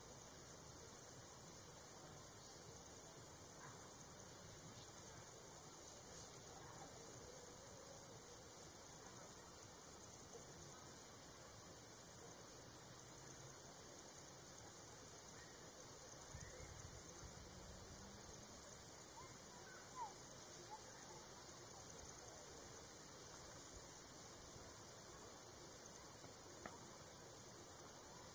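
Crickets chirring in a steady, high-pitched chorus, with a brief dip about nine seconds in.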